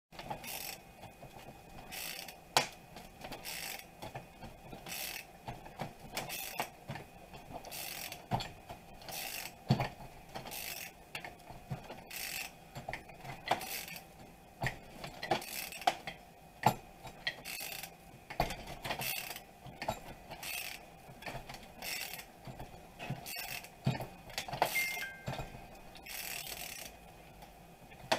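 Ratchet wrench clicking in repeated strokes as its socket turns the forcing screw of a power steering pump pulley puller, drawing the pulley off the pump shaft, with small metal clinks of the tools.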